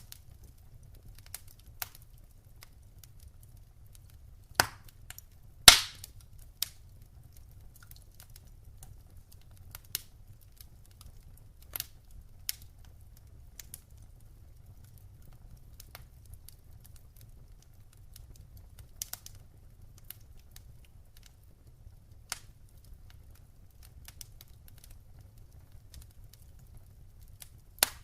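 Wood fire crackling in a fireplace: scattered sharp pops and snaps at irregular intervals, the loudest pair a little under five and six seconds in, over a faint steady low rumble.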